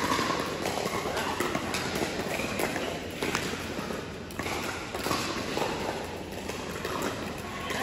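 Indoor pickleball hall between points: a few scattered sharp pops of paddles hitting balls on neighbouring courts, over a steady echoing hall noise.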